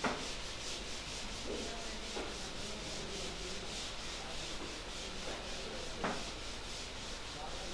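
Chalkboard duster scrubbing across a blackboard in quick back-and-forth strokes, wiping off chalk, with a light knock at the start and another about six seconds in.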